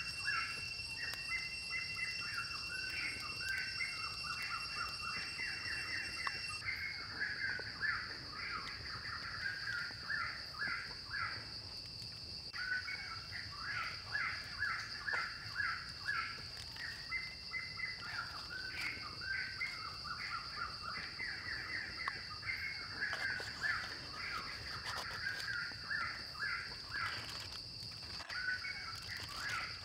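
Forest ambience: birds chirping over and over in quick phrases, over a steady high-pitched insect buzz.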